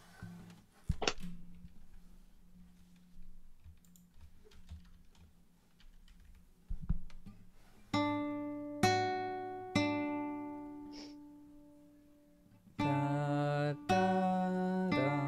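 Acoustic guitar playing three single plucked notes about a second apart, a major third up and back down (D, F-sharp, D), as an ear-training interval. There is a sharp click about a second in, and near the end a voice sings sustained notes.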